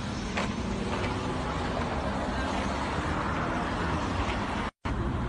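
A motor vehicle engine running steadily under a constant road-noise hiss. The audio cuts out for a moment near the end.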